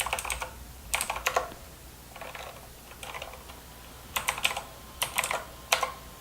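Clicky blue switches of an EagleTec KG010 mechanical keyboard being pressed: short clusters of sharp key clicks roughly once a second, with brief pauses between.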